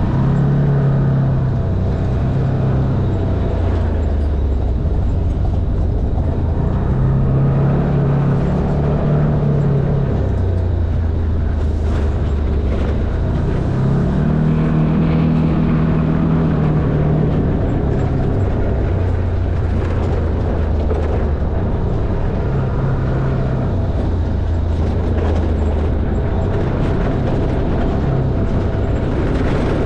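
Side-by-side UTV engine running as it drives over a rough dirt track. Its note rises and falls several times as the throttle is opened and eased.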